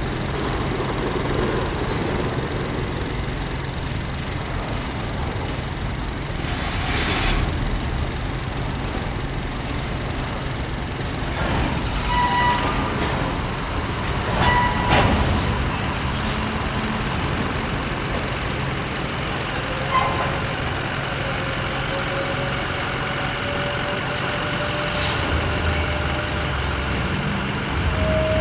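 Freight train of covered hoppers rolling slowly through a grade crossing: a steady low rumble of cars and wheels, with about five sharp clanks from the cars and couplers.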